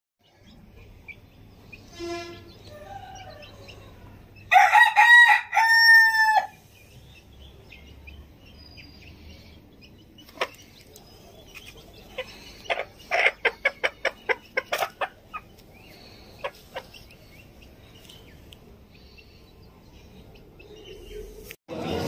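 A rooster crows once, loud and in two parts, the last note held and then falling, about four and a half seconds in. Later comes a quick run of about ten short, sharp clucks or clicks.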